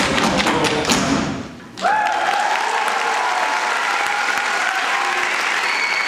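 Final beats of hambone body slaps and step-dance foot taps, which stop sharply about a second and a half in. An audience then applauds, with a long cheer over the clapping.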